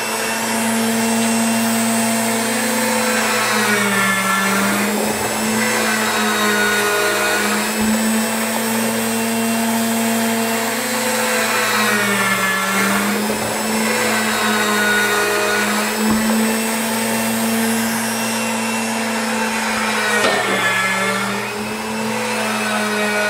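Small electric gear motor running steadily, rocking a water-filled PVC soaking tube back and forth. Its hum sags in pitch and recovers about every eight seconds.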